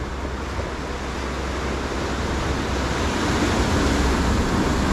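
Ocean surf washing over a rocky shoreline, a steady rush that grows louder through the second half as a wave breaks, with wind rumbling on the microphone.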